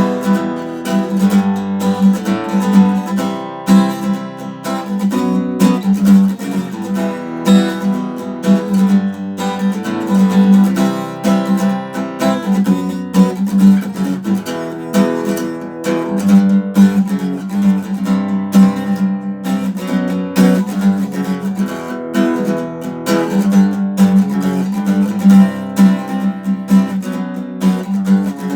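Acoustic guitar strumming chords in a steady rhythm: the instrumental introduction of a song, before the vocals come in.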